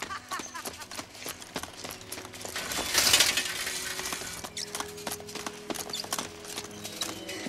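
Film soundtrack of rapid metallic rattling and clinking, with a loud breaking crash about three seconds in, over faint music.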